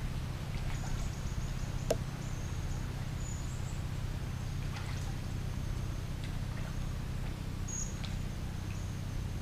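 Steady low drone of a small engine running at an even speed, with high, thin chirps coming and going over it and a few light clicks.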